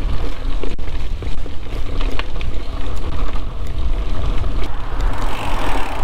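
Mountain bike riding along a dirt trail: a constant, uneven low rumble on the riding camera's microphone, with scattered clicks and rattles from the tyres and bike.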